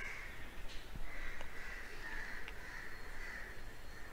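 Faint animal calls in the background, several in a row, over low room noise, with a few soft clicks.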